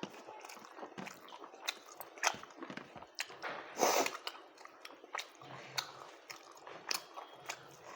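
A person chewing a mouthful of rice close to the microphone, with many short mouth clicks and a louder breathy sound about four seconds in.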